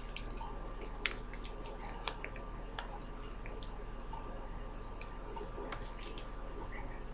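Popcorn kernels popping inside a running microwave oven: scattered sharp pops, a few a second, over the oven's steady hum.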